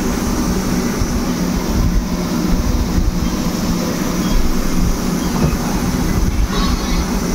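A steady, low mechanical rumble with a hum, even in level.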